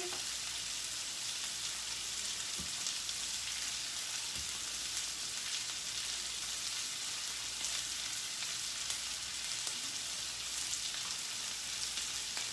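Meat frying in a pan: a steady sizzle with scattered small pops.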